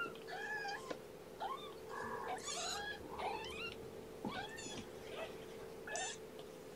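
Young kittens, about two and a half weeks old, mewing again and again in short, high, rising cries, about two a second and sometimes overlapping. A steady low hum runs underneath.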